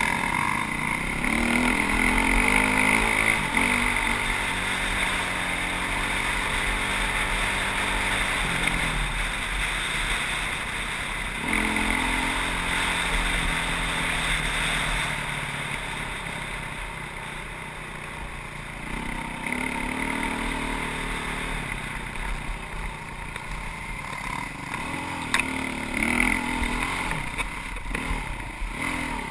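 Dirt bike engine running hard, its pitch climbing as it accelerates and then easing off several times, with wind buffeting the microphone.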